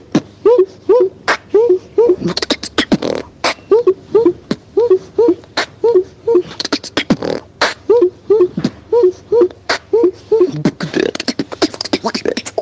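Solo beatboxing: a steady beat of sharp kick and snare sounds made with the mouth, woven with a short pitched vocal riff repeated about twice a second.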